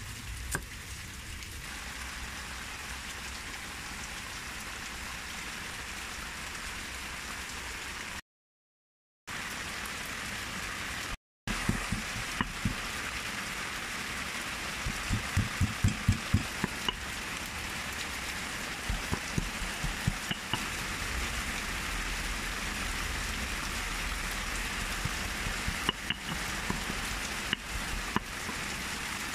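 Stone pestle pounding red chilies and garlic in a granite mortar: a run of sharp, dull thuds, fastest about halfway through, over a steady hiss. Near the start a single knock comes from a cleaver chopping snail shells on a wooden board.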